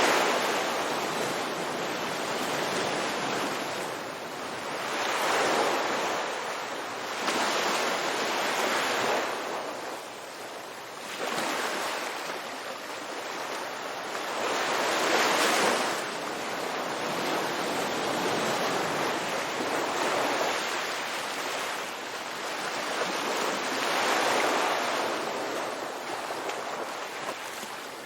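Ocean waves breaking on a beach, a steady wash of surf that swells and recedes every few seconds.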